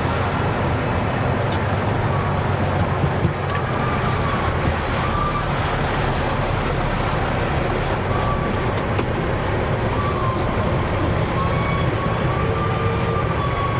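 A dump truck's diesel engine running steadily, with a faint wavering whine above the hum.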